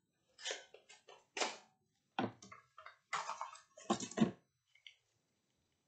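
Cardboard box packaging being torn open and handled by gloved hands as a cream tube is taken out: a series of short crinkling rustles, with a couple of duller knocks about four seconds in.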